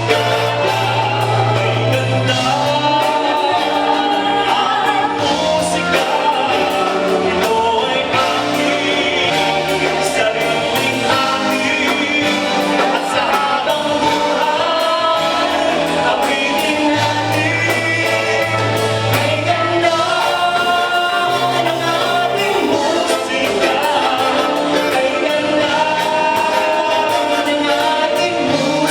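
A vocal group singing in harmony over live band accompaniment, with held bass notes and percussion.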